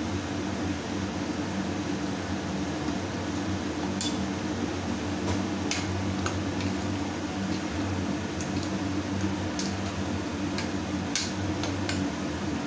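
Metal spoon stirring curry in an aluminium pressure cooker pot, with short clinks and scrapes against the pot's rim and sides from about four seconds in. A steady low hum runs underneath.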